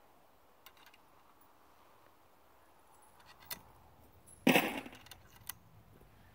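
A few light metal clicks from handling a Baikal SPR 310 over-under .410 shotgun, with one louder clack about four and a half seconds in.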